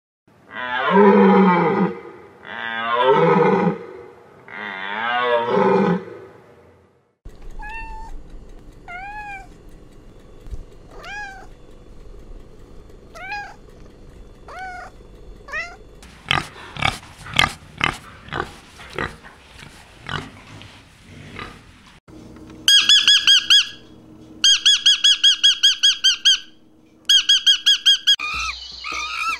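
African elephant calling: three long, loud calls with falling pitch. Then a tabby cat meowing in short calls about once a second, a run of sharp clicks, and a peach-faced lovebird chirping rapidly and shrilly in three bursts.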